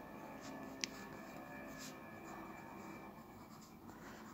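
Graphite pencil scratching faintly across drawing paper as it shades darker tone around a drawn nose's nostrils, with one small sharp click about a second in.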